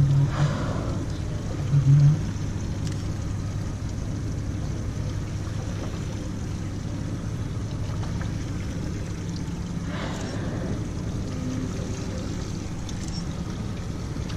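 Twin Mercury outboard motors idling with a steady low hum. Two brief hissy washes of water come through, one about half a second in and another about ten seconds in.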